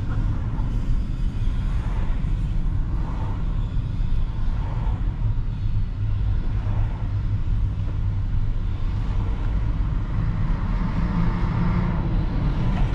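Steady low rumble of a car's road and engine noise, heard from inside the cabin while driving in city traffic.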